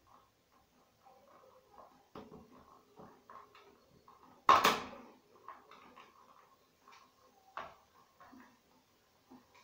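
Pliers and hands working on a plastic electric instant shower head: scattered small clicks and knocks, with one loud sharp clack about halfway through.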